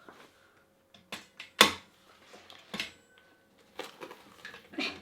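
A few sharp clicks and knocks of metal parts being handled on a KitchenAid stand mixer, as its head lock is worked. The loudest comes about one and a half seconds in.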